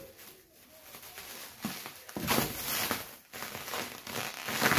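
Clear plastic wrap crinkling and rustling as hands pull and work it off a bike frame, in uneven bursts, loudest about two seconds in and again near the end.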